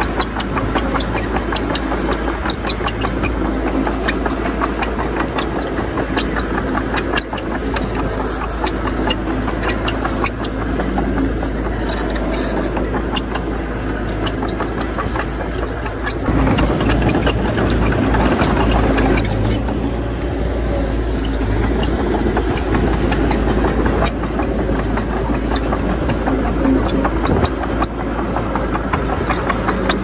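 Bulldozer's diesel engine running steadily as it works soil, growing louder for about three seconds past the middle, with scattered faint clicks in the first half.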